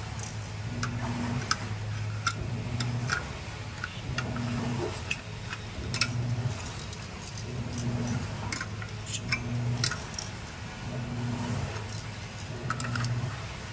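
Light metallic clicks and taps from a butane cartridge being handled against the round canister holder of a portable card-type gas stove. Under them runs a low hum that swells and fades about every one and a half seconds.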